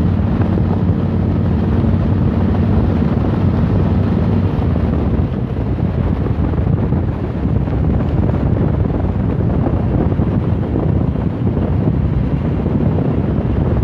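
Motorcycle engine running steadily at cruising speed, with heavy wind noise buffeting the microphone.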